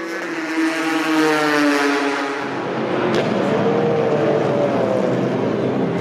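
Ford GT race car's twin-turbo V6 engine, its note falling steadily in pitch. About two and a half seconds in, it gives way to a different race-car engine sound that wavers up and down, with a quick dip and rise in pitch near the end.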